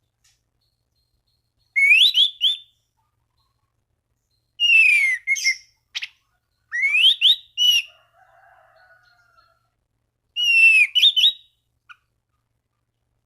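Anis cendana thrush singing at full volume in four short bursts of clear, whistled notes that slide up and down, with pauses of one to three seconds between phrases. This is a bird in full song, the kind used as a lure to challenge rival thrushes into singing.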